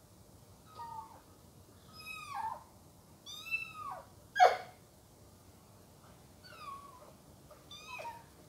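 Kitten mewing repeatedly: about six high calls, each falling in pitch, the loudest and shortest about halfway through.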